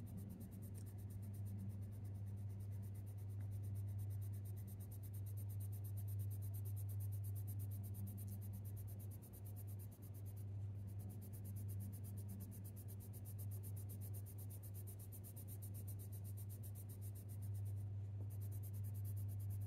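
Faber-Castell Polychromos coloured pencil scratching faintly over hot-press watercolour paper, laid in strokes with even pressure, with a steady low hum underneath.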